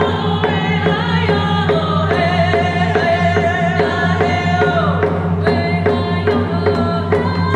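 Women singing a Native grand entry song together, their voices rising and holding long notes over a steady beat of hand-held rawhide frame drums struck with beaters.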